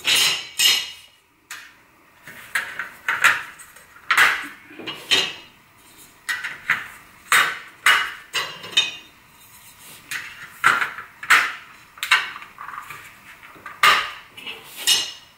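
Metal drawer runners being hooked into and pushed along a steel IKEA Helmer cabinet side panel: a dozen or so sharp metallic clicks and clanks, irregularly spaced, as the runners' hooks snap into the panel's holes.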